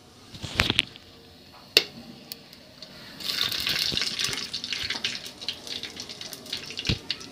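Water poured into hot oil and whole spices in a pressure cooker: a few short knocks, then from about three seconds in a steady pouring hiss with small crackles as the water hits the hot tempering.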